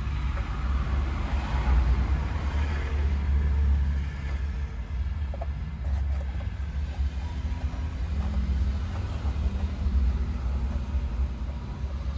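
Mahindra Jeeto mini truck's diesel engine running with a steady low rumble.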